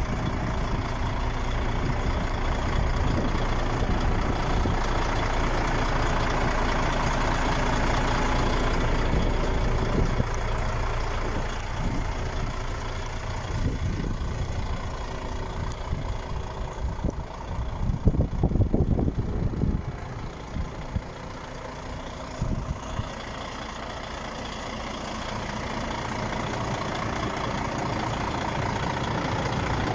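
DAF XF 105.410 truck's PACCAR MX straight-six diesel idling steadily. A cluster of louder knocks comes a little past halfway.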